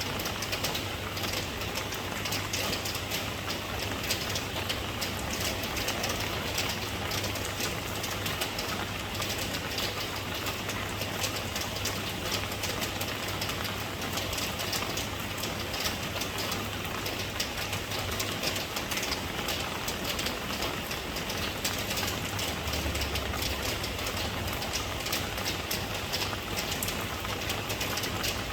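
Steady rain falling, a constant hiss of many small drops, with a steady low hum underneath.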